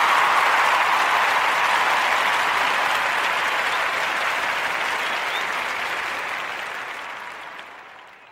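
Applause from a crowd, a dense steady clapping that fades away over the last couple of seconds.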